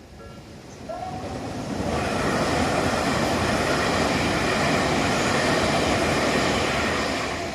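Electric train passing over a level crossing, its wheels running on the rails. The sound builds from about a second in, holds loud for about five seconds, and fades near the end.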